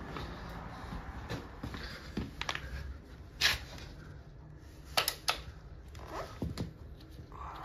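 Scattered light knocks and clicks over a low steady hum, the two loudest knocks about three and a half and five seconds in.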